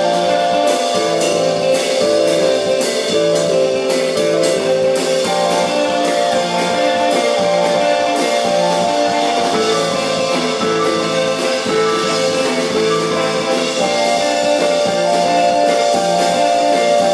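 Live rock band playing: electric guitars, a Nord Electro keyboard and a drum kit, with held chords over the drums. The drum hits come thick in the first several seconds and thin out after that.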